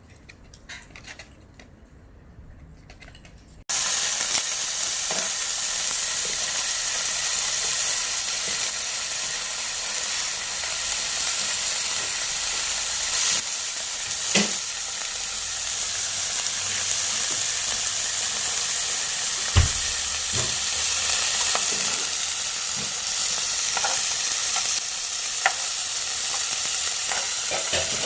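Food sizzling in a hot frying pan, with scattered taps and scrapes of a utensil stirring it. The sizzle cuts in suddenly about four seconds in, after a few faint clicks.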